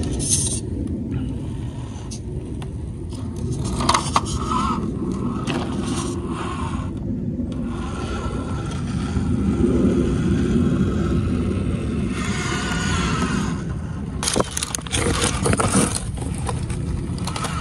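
1/18-scale Hobby Plus CR18-P Evo Pro RC rock crawler working its way over boulders: the small electric drivetrain whines and rises and falls with the throttle while its tyres and chassis scrape and click on the stone. A steady low rumble sits underneath throughout.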